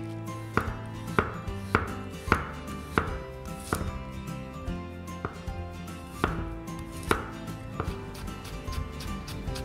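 Chef's knife chopping on a bamboo cutting board, first shredding cabbage and then slicing garlic cloves: a run of sharp knocks of the blade against the wood, roughly one every half second to second.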